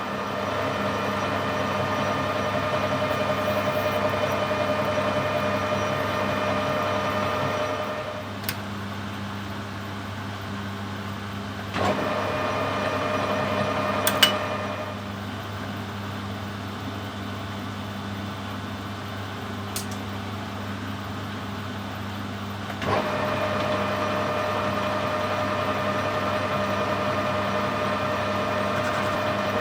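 Metal lathe running with a steady hum and whine. It drops away about eight seconds in, comes back briefly around twelve seconds, drops again, and runs up once more near the end, with a few sharp clicks and knocks in between.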